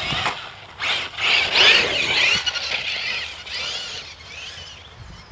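Electric Losi 8ight 1/8-scale RC buggy with a Tenshock brushless motor, a high whine from the motor and gearing that rises and falls in pitch with the throttle. It is loudest a second or two in, then fades away.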